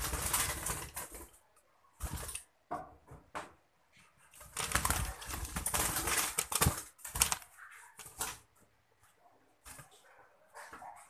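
Yellow-vented bulbul fluttering its wings in a cage, in several bursts of flapping and rustling, the longest lasting about three seconds.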